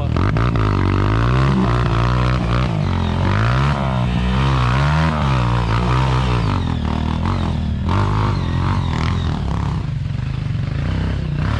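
Off-road vehicle engine running at low revs. For the first several seconds its pitch rises and falls repeatedly with the throttle, then it settles into a steadier run.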